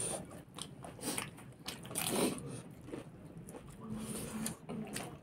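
Close-up eating sounds: people biting and chewing pieces of chicken curry, with irregular crunches and wet smacks.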